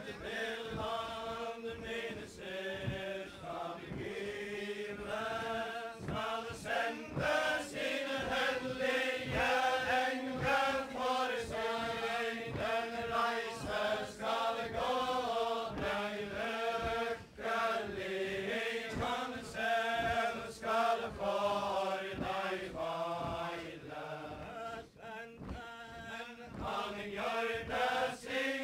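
A group of Faroese villagers chanting a wedding ballad in unison, in the traditional style of the Faroese chain dance. Dull low thuds at an even pace of about two a second run under the singing, in keeping with the dancers' steps.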